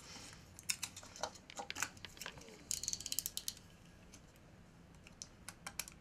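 Self-adhesive aluminium foil tape crinkling and crackling as it is handled and pressed around a wooden lure body. Scattered crackles, a quick run of them about three seconds in, then only a few faint clicks.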